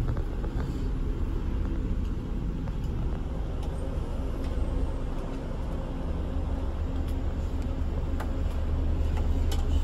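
Scania K360 IB coach driving on the road: a steady low rumble of engine and road noise, with a few faint light clicks or rattles.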